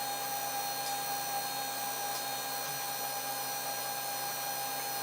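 3D printer running with a steady whir and a constant thin whine, holding even throughout.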